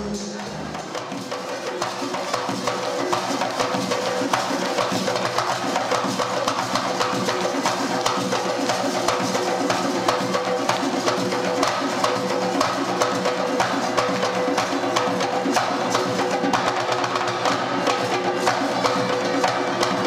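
Music with a fast, busy percussion beat of clicking, woodblock-like strokes over a few held tones.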